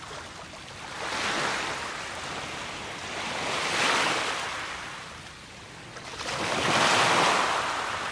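Sea waves washing onto a beach: three swells of surf, each rising and falling away, about three seconds apart.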